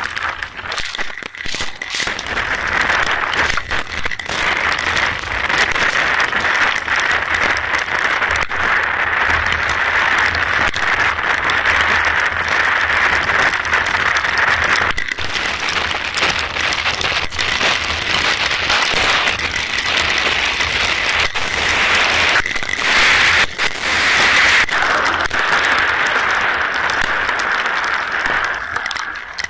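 Steady rain pattering, a dense crackling hiss with a low rumble underneath.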